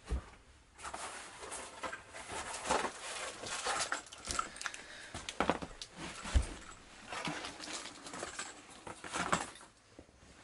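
Small airsoft gearbox parts being handled on a workbench: a run of clicks, light knocks, scrapes and rustling, with a sharper knock about six seconds in.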